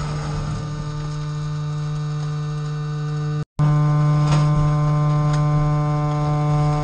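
Compactor container's hydraulic drive running with a steady, even hum as the press plate pushes forward into black rubbish bags. The sound cuts out for an instant about halfway through, then carries on a little louder, with a few faint ticks.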